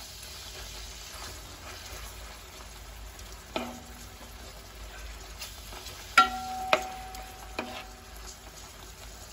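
Masala-coated fish pieces sizzling as they shallow-fry in oil in a metal kadai. A wooden spatula knocks against the pan a few times in the second half, each knock leaving a short metallic ring, the loudest about six seconds in.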